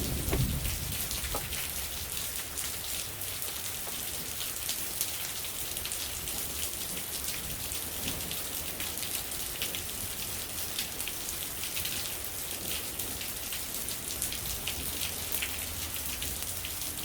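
Steady rain falling, a dense patter of many small drop impacts.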